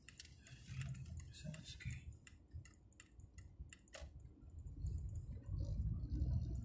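Car's turn-signal indicator ticking steadily, about three ticks a second, heard inside the cabin over a low driving rumble. The rumble swells about a second in and again near the end, and there is one sharper knock about four seconds in.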